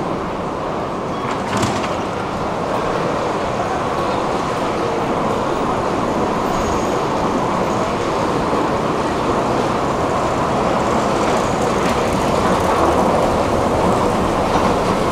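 Steady mechanical rumble of a metro station's escalator machinery, growing a little louder in the second half. A single sharp click about a second and a half in.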